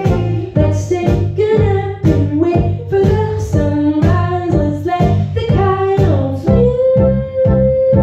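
Live band playing a song: two women singing together over synthesizer keyboards and electric bass, with a steady beat about twice a second. Near the end the voices hold one long note.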